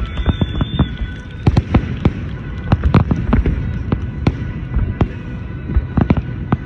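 Aerial fireworks shells bursting in quick, irregular succession: many sharp bangs over a low rumble.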